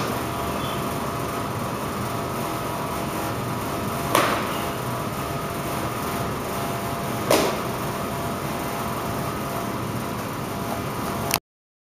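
Steady background hum of room noise, with two sharp slap-like impacts from the martial artist's form, about four and seven seconds in. The sound then cuts off abruptly near the end.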